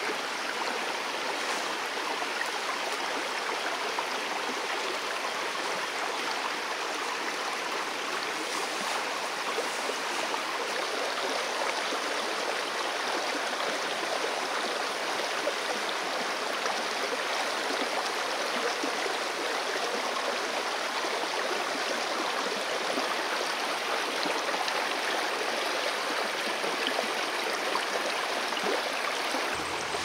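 Shallow stream running over rocks, a steady, unbroken sound of flowing water.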